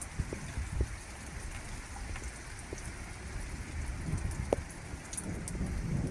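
Rain falling, a steady hiss with scattered drop ticks. An uneven low rumble rises and falls underneath, stronger near the end.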